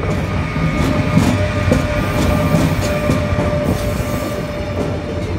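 Korail 8200-class electric locomotive and its passenger coaches passing close by, wheels clattering over the rail joints with scattered sharp clicks, while a steady high tone runs through.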